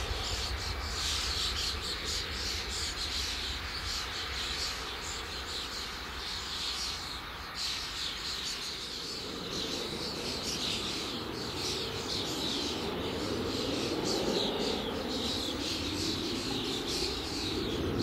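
Birds and insects chirping steadily, over the distant noise of an Embraer Legacy 650 business jet's turbofan engines as it climbs away after takeoff. A low rumble fades over the first seconds, and a duller engine noise swells again from about halfway through.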